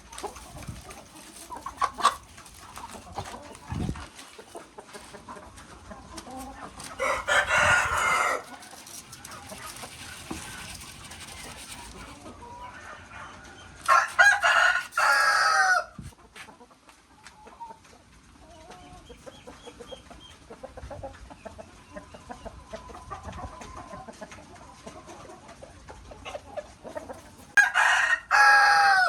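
Roosters crowing three times, each crow lasting about one and a half to two seconds, with softer chicken clucking between the crows.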